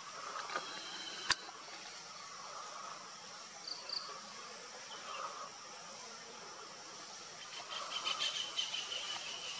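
Insects chirping steadily in forest, with one sharp click about a second in. A louder, pulsing insect buzz comes in near the end.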